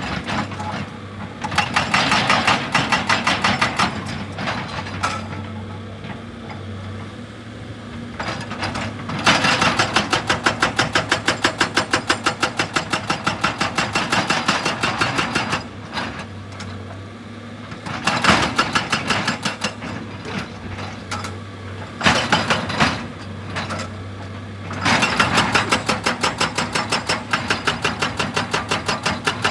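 Heavy machinery hammering into rock in repeated bursts of rapid, evenly spaced blows, each burst lasting a few seconds. A diesel engine runs steadily in the pauses between the bursts.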